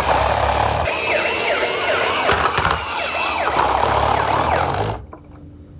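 Toy garbage truck's electronic sound module playing a siren-and-engine effect through its small built-in speaker, with pitch sweeping up and down over a noisy rumble. It cuts off suddenly about five seconds in.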